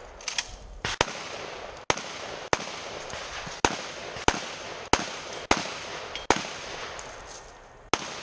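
A string of about ten gunshots from a long gun fired in quick succession, mostly a bit more than half a second apart, with a pause of over a second before the last shot near the end.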